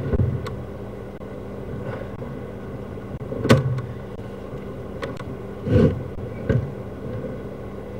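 A steady low machine hum, with a few short thumps and knocks, the loudest about three and a half seconds in and two more near six seconds.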